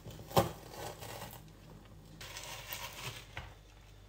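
Knife cutting through a hardened cereal-and-marshmallow bar in a plastic tub: faint scraping and a few light ticks, with one sharp knock about half a second in.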